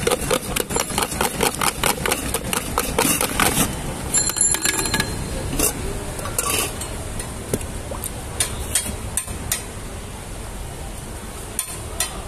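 Wooden stick stirring hard inside a stainless-steel mug, knocking the metal about five or six times a second for the first three seconds or so. After that comes a single ringing metal clink, then slower, scattered knocks and clinks.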